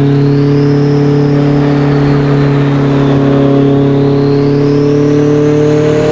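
Mitsubishi Lancer Evolution IX's turbocharged four-cylinder engine running, with its Garrett GT37R turbocharger whistling loudly over it. The whistle rises, sinks around the middle, then climbs higher near the end, while the engine note stays fairly steady and edges up at the very end.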